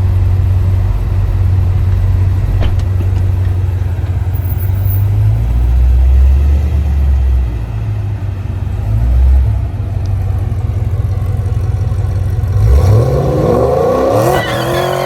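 Supercharged 6.2-litre LSA V8 of a 2010 Chevrolet Camaro SS running with a deep low-rev rumble. About thirteen seconds in it revs up sharply, then the revs fall away near the end.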